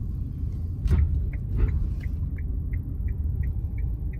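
Low, steady rumble of a car's engine and tyres heard from inside the cabin as it creeps along. About a second in there is a single knock, and then a short, high electronic beep from the car repeats evenly about three times a second.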